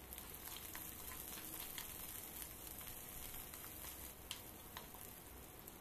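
Sliced shallots and curry leaves sizzling faintly in hot oil in a kadai, with scattered small crackles, as they are tempered and stirred with a wooden spatula.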